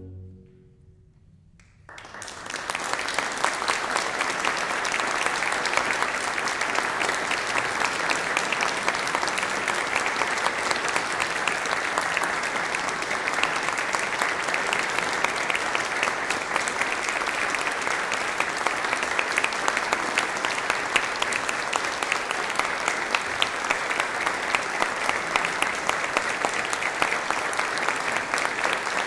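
The last sung chord, with strings and organ, cuts off right at the start. After about two seconds of hush, an audience breaks into steady, sustained applause.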